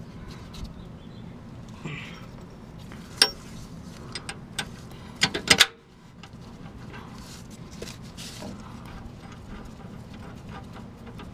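A few sharp metal knocks and clunks as a steering rack is worked back into place under a car: a single one about three seconds in and a quick cluster around five seconds, over a steady low hum.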